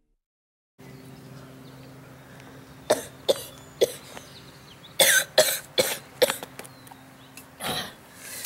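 A boy coughing in short fits, starting about a second in after near silence: three coughs around three seconds in, a quick run of coughs around five to six seconds, and one more near the end, over a faint steady hum.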